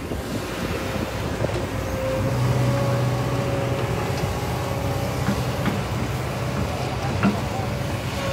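An engine running steadily, louder from about two seconds in, with a few short knocks over it.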